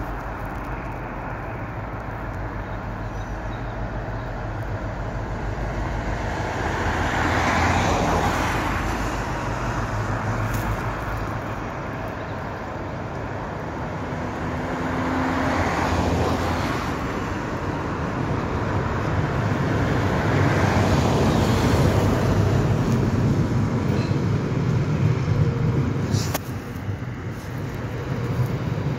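Class 60 diesel freight locomotive, with its Mirrlees eight-cylinder engine, approaching slowly and passing beneath, a low steady drone that grows louder through the second half as the loaded hopper wagons start rolling past. Louder swells of road traffic pass close by about eight and sixteen seconds in.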